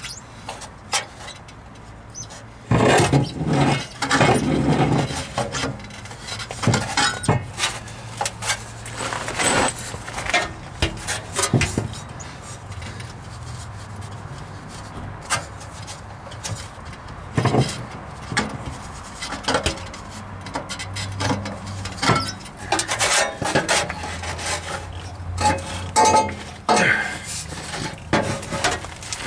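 Irregular metal clinks, knocks and scrapes of a socket wrench and steel exhaust pipe being handled and worked under a car.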